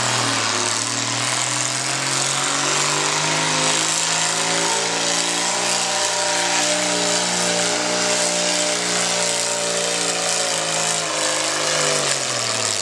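Naturally aspirated pulling tractor's engine running hard at high revs under heavy load as it drags the weight-transfer sled. Its pitch climbs slowly over the first several seconds, holds steady, then falls away near the end.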